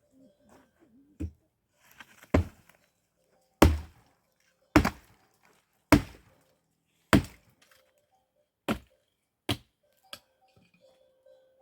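Wood being chopped: a series of about nine sharp, heavy blows roughly one a second. The middle strikes are the loudest, and the last few are lighter and quicker.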